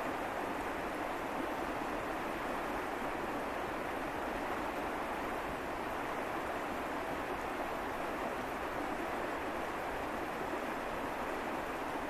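Fast mountain river rushing over stones: a steady, even hiss of flowing water.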